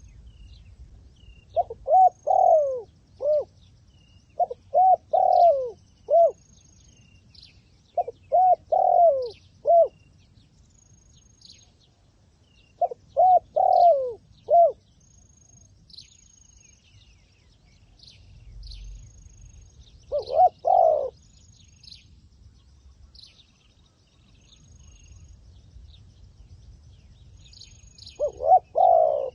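A dove cooing in short phrases of three to five quick, arching notes, repeated every few seconds with pauses between, the last phrase starting just before the end. Faint high chirps from small birds come in between.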